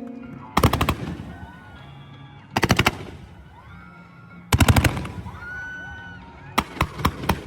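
Matchlock guns firing: three quick ragged volleys of sharp bangs, each about half a second long, then near the end a steady run of single shots, about two or three a second.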